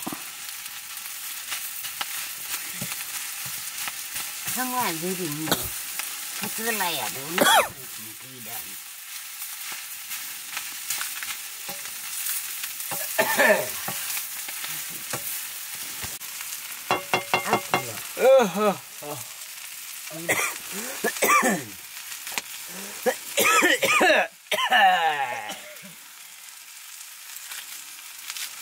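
Green vegetables sizzling in a black iron wok over a wood fire: a steady frying hiss, with several loud scraping squeaks that slide in pitch as the greens are stirred with a wooden spatula against the iron.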